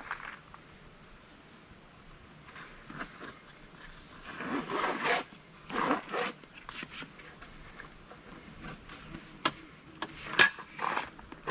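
A Cabela's folding camp cot being set up: canvas rustling and metal frame parts scraping as the end bar is worked into place, with a sharp snap of the frame about ten seconds in. A steady high drone of insects runs underneath.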